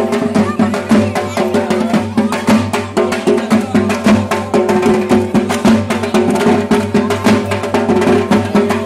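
Fast traditional festival drumming and clacking percussion with a dense, driving beat over steady held tones, the music for a dhunuchi incense dance.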